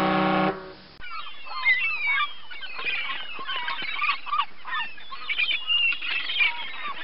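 A flock of birds calling over one another in many short rising and falling calls, starting about a second in, after a held pitched tone cuts off about half a second in.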